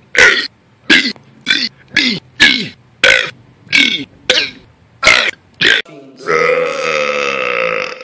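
A person belching on command in a quick series of about ten short burps, then one long, drawn-out belch starting about six seconds in.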